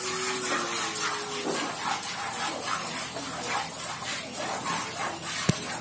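Milk squirting into a pail as a cow is milked by hand, in a steady rhythm of about two squirts a second. A brief knock comes near the end.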